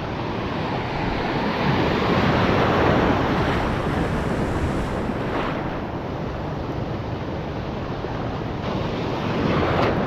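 Sea waves washing in, with wind rumbling on the microphone; the wash swells about two seconds in, then eases.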